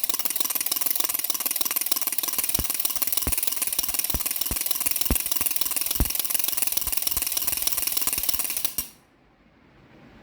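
Baby rattle shaken fast and continuously, a dense rattling that cuts off suddenly near the end.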